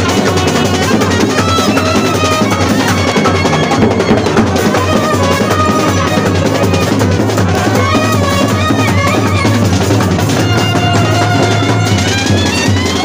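Marching brass band playing a tune on euphoniums, trumpets and clarinets over continuous beating of large bass drums and snare drums.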